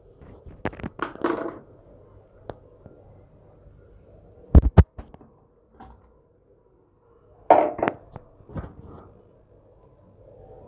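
Raw beef pieces being tipped from a bowl into an empty stainless steel pot: scattered thuds of meat dropping onto the pot bottom and clatter of the bowl against the pot. The loudest are two heavy thumps about four and a half seconds in, with another cluster around seven and a half seconds.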